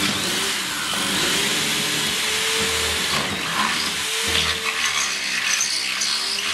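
Corded electric drill boring a 5/16-inch hole down through a plywood floor, its motor pitch sagging and recovering as the bit bites into the wood. The cutting turns rougher and more uneven over the last second or so.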